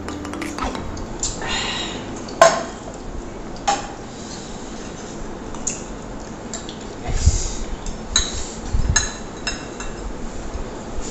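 Forks and spoons clinking and scraping against plates and glassware at a meal, with scattered sharp clinks, the sharpest about two and a half seconds in, and a flurry of duller knocks and clatter around seven to nine seconds in.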